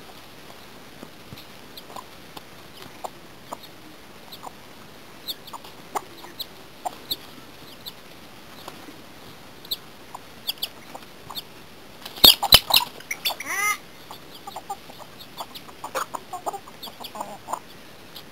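Domestic chickens clucking and peeping while foraging, with short high chirps scattered throughout and a loud burst of calling about twelve seconds in.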